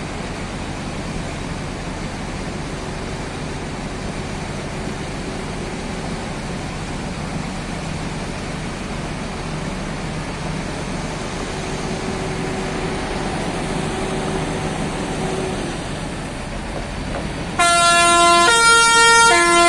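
Coach bus engine running steadily as the bus manoeuvres. Near the end a loud telolet horn sounds, stepping through several tones in a quick melodic run.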